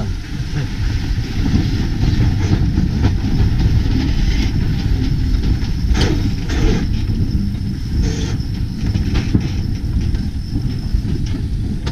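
Wind buffeting the microphone over the rush of water along a sailing yacht's hull, a steady low rumble, with a couple of sharp knocks about six seconds in.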